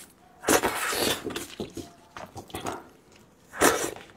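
Close-miked eating sounds from a spiced sheep's head: wet sucking and mouth noises, with a louder burst about half a second in and another near the end, and small wet clicks between.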